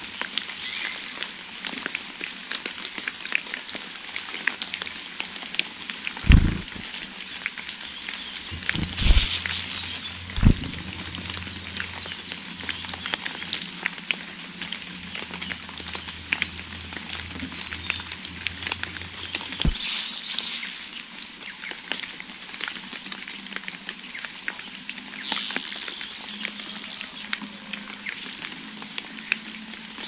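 Nestling songbirds giving thin, very high-pitched begging chirps in rapid bursts, with light rustling and a few soft thumps at the nest.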